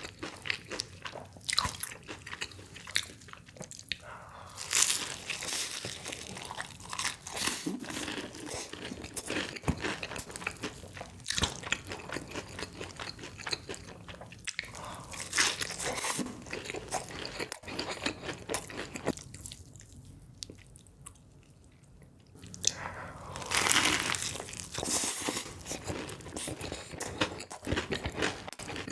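Close-miked eating sounds of crispy fried chicken: the breaded coating crunching and crackling with each bite, with chewing in between. The crunching eases off for a couple of seconds about two-thirds through, then comes back loudly.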